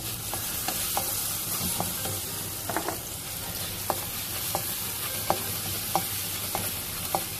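Minced garlic sizzling in a wok as it is stir-fried, with a slotted spatula clicking and scraping against the pan about every half second.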